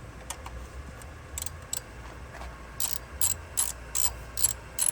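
Socket ratchet wrench clicking in short bursts as 12 mm bolts on the fuel rail are run down, the bursts coming about two or three a second in the second half.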